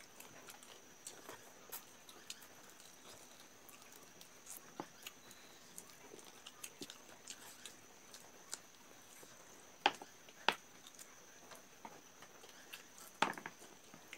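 Close-up eating sounds from two people eating rice and chicken by hand: scattered chewing, lip smacks and small clicks, with a couple of sharper clicks about ten seconds in.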